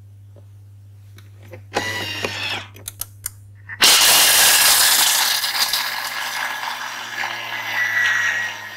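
A rattling clatter with a few sharp clicks. Then, about four seconds in, a Thermomix's blades reach speed 9 and grind whole almonds into almond meal with a loud, dense grinding noise that eases off slowly.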